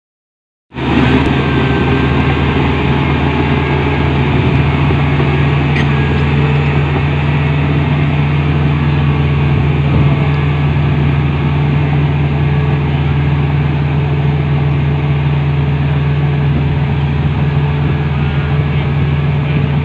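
Komatsu D65P bulldozer's diesel engine running steadily with a deep, even hum. The sound cuts in abruptly about a second in.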